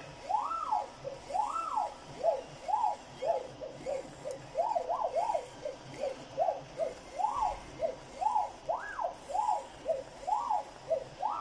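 Stepper motors of a vertical plotter laser engraver whining as they drive the head through short moves. Each move's whine rises and falls in pitch as the head speeds up and slows down, about two moves a second.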